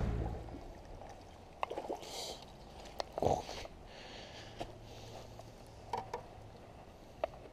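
A freshly landed crappie flopping on dry leaves and pebbly ground: a few scattered rustles and light knocks, the loudest about three seconds in.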